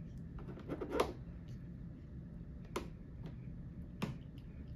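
Three short sharp clicks, about a second in, near three seconds and about four seconds in, over a steady low hum.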